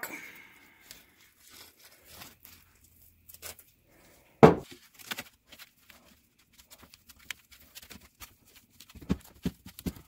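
Quiet handling sounds of adhesive-coated foam pieces being rubbed and pressed into the corners of a box fan's metal frame, with one sharp knock about four and a half seconds in and a few light clicks near the end.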